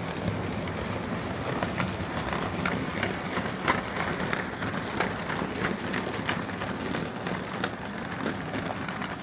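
Model train running past: the locomotive's motor hums steadily under irregular clicks of the wheels over the rail joints.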